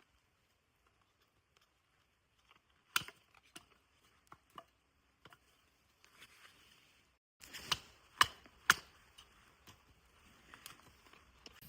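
Sparse sharp clicks and knocks: one about three seconds in, a few lighter ticks, then three louder ones in quick succession about eight seconds in, after a brief total dropout of sound.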